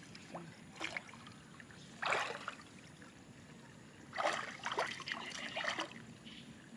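Water splashing and trickling in irregular bursts: a short one about a second in, a stronger one about two seconds in, and a longer, broken stretch from about four to six seconds.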